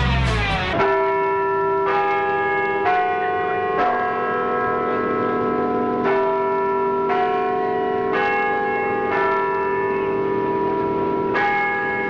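Bells ringing, starting about a second in: struck roughly once a second with a couple of short gaps, each stroke ringing on under the next.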